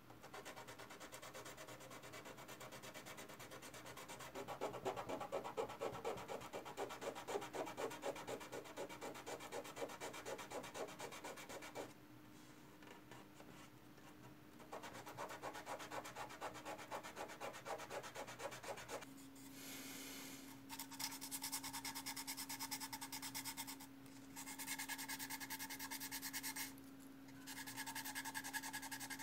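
Hand sanding of plastic model-kit parts: a sanding pad rubbed quickly back and forth over glued seams, smoothing them for priming. The strokes come in fast runs with short pauses, briefly stopping about twelve seconds in and again near nineteen seconds.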